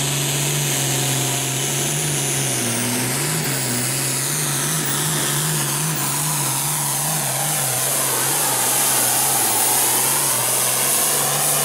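A Ford hot farm pulling tractor's diesel engine running at full throttle while pulling a weight-transfer sled, with a high whine above the engine note. The engine note wavers up and down from about two seconds in to about eight seconds in, then holds steady.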